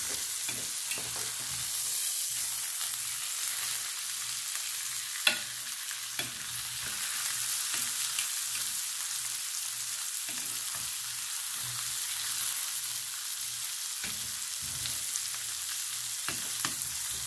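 Browned pot roast sizzling in its fat and juices in a stainless electric skillet that has just been switched off, with metal tongs clicking against the meat and the pan. There is one sharp clack about five seconds in.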